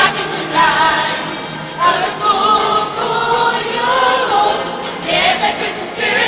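High school choir singing a holiday song, with many voices together in sustained phrases. New phrases come in about two seconds in and again about five seconds in.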